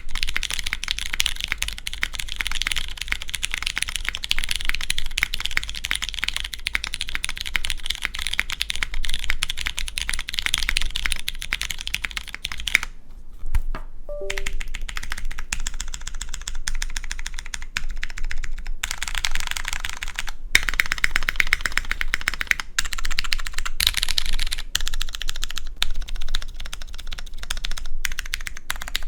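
Fast typing on a custom mechanical keyboard with a carbon-fibre plate, lubed Cherry MX Clear tactile switches and GMK doubleshot ABS keycaps: a continuous clatter of keystrokes, with a brief pause about halfway through.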